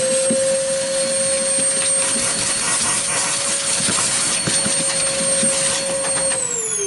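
A small electric motor spinning up, running at a steady high speed with a whine over a rushing hiss, then winding down near the end.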